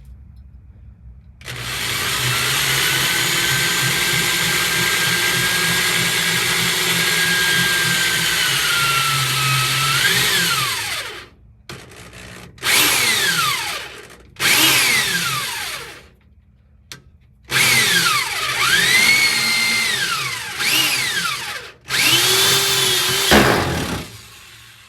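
Power drill running at a steady speed for about ten seconds, then winding down. Four shorter trigger bursts follow, each whine rising and falling in pitch, as it works on the sheet-metal floor pan.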